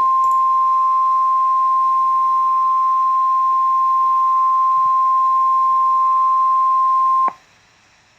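Emergency alert attention tone, a single steady high-pitched tone of about 1050 Hz as used by NOAA Weather Radio, held for about seven seconds and then cutting off abruptly. It is the signal that announces an emergency weather warning.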